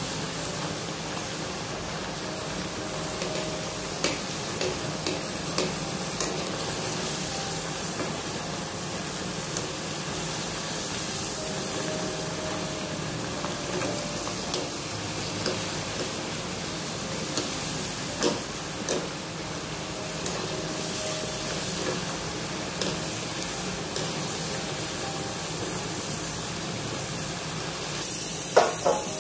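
Potato fries sizzling as they deep-fry in hot oil in a metal kadhai, stirred with a wire-mesh skimmer. The skimmer taps and scrapes against the pan now and then, with a few sharper taps near the end.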